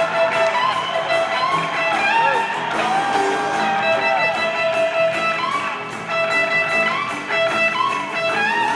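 Electric guitar playing an unaccompanied-sounding live solo in a country chicken-picking style: quick plucked notes with bends and slides.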